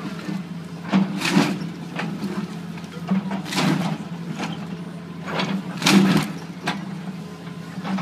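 A John Deere excavator's diesel engine running steadily, with short crashes of breaking wood and debris every second or two as the bucket tears into a wooden building.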